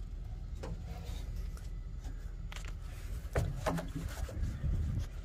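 Knocks and short creaks inside an old truck's cab, over a steady low rumble; the loudest cluster comes a little past the middle.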